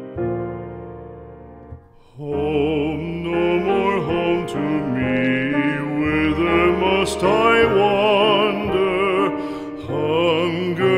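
Piano notes struck by a cat's paws on the keys, ringing and fading. From about two seconds in, a loud, opera-like singing voice with wide vibrato.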